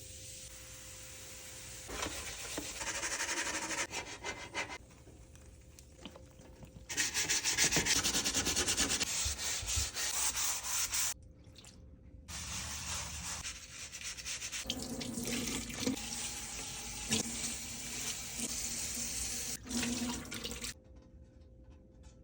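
A tray being scrubbed in three spells of rough, rapid rubbing strokes, with short pauses between them.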